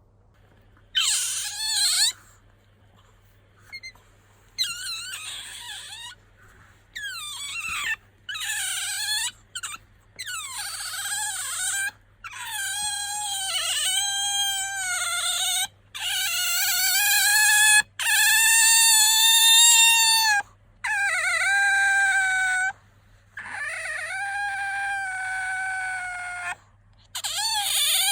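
Asian small-clawed otter squeaking: a dozen or so drawn-out, high-pitched calls, each one to three seconds long, many wavering at the start and then held on a steady pitch, with short pauses between. This is the call the owner says the otter makes when it is sleepy or wants attention.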